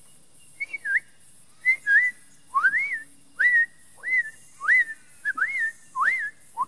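A person whistling an imitation of small parrots' chirping: about a dozen quick notes, most swooping upward and then wavering, in a brisk run.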